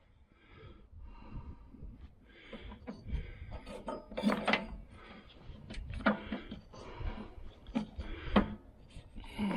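Hands working on a lawn tractor's drive belt and pulleys: scattered sharp knocks and clunks with rubbing and scraping in between.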